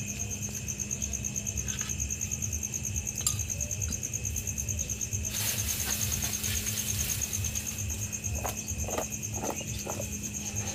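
Crickets chirring steadily with a fast pulsing trill, over a constant low hum. A brief rustle comes about halfway through, and a few short handling sounds from a steel bowl follow near the end.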